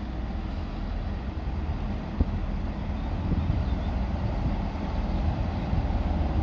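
Train running on the line at the station, a steady low rumble that grows slightly louder, with a single sharp knock about two seconds in.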